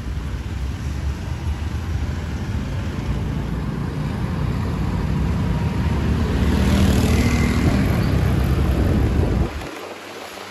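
Ride noise from a two-wheeler moving through city traffic: a heavy, rough low rumble of wind and engine that grows louder about six seconds in, then drops away abruptly near the end.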